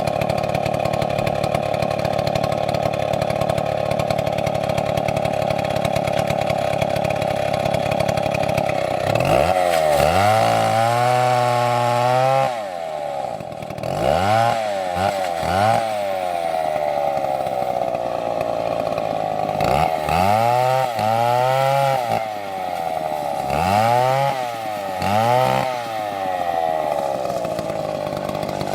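Two-stroke chainsaw running steadily at high speed for about nine seconds, then revved up and let back down several times, its pitch rising and falling with each blip of the throttle.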